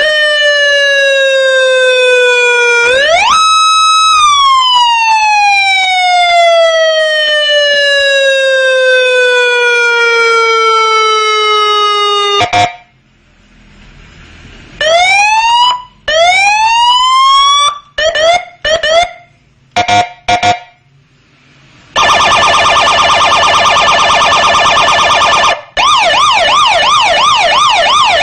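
Indonesian police patwal electronic siren cycling through its tones. First comes a long wail that climbs, holds briefly, and falls slowly over about ten seconds. Then a string of short rising whoops, a rapid warble, and near the end a fast repeated yelp.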